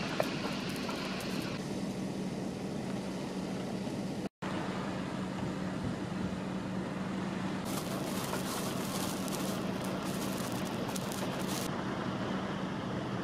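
Steady outdoor storm ambience of wind and rain over wet pavement, with a constant low hum underneath. It drops out for an instant about four seconds in, and a stretch of crackly noise comes in just before the eight-second mark and stops about four seconds later.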